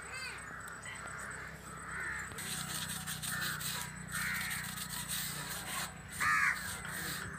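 Crows cawing several times, the loudest call about six seconds in.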